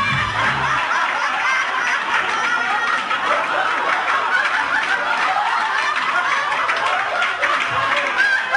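Audience laughing, with music stopping about a second in. The sound cuts off abruptly at the end.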